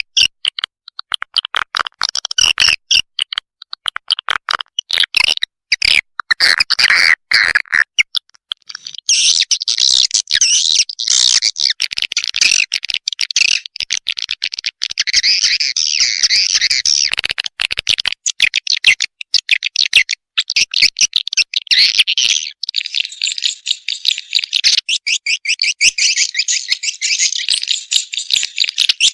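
Swiftlet lure call: a recording of many swiftlets' rapid, high-pitched twittering chirps and clicking trills, layered densely, of the kind played from speakers in a swiftlet house to draw birds in. About nine seconds in it thickens into continuous chattering, and near the end it turns into a fast, even run of clicking pulses.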